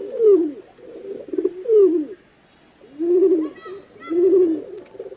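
Pigeons cooing: a run of low, throaty coos, the first ones sliding down in pitch, then after a short pause two rounder coos about a second apart.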